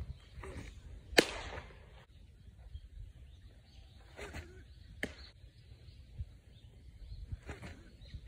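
Baseball pitching practice: a sharp smack about a second in, another about five seconds in, and one at the very end, one for each thrown ball landing. Fainter knocks from the pitcher's delivery fall between them.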